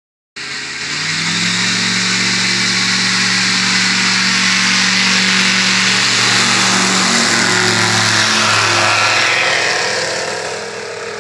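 Topaz ultralight aircraft's engine and propeller running steadily at takeoff power as it rolls across grass and lifts off, getting quieter near the end as it climbs away.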